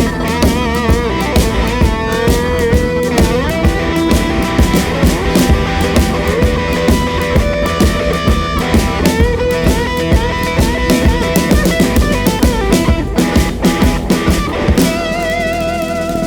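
Rock band playing live in an instrumental passage without singing: drum kit, bass and electric guitar, with a lead line of bent, wavering notes over a steady beat.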